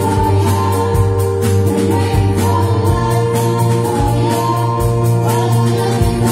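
School band playing a pop song: keyboards, bass guitar and a steady drum beat under group singing.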